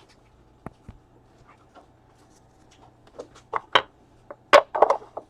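Handling noises on a table: two light knocks early, then a cluster of sharp clicks and rustles, loudest near the end, as of card boxes and packaging being handled.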